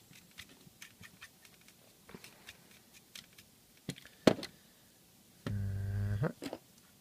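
Light taps and clicks of a brush against plastic model parts as loose pigment powder is tapped off, with a sharper knock about four seconds in. A brief low hum from a man's voice follows.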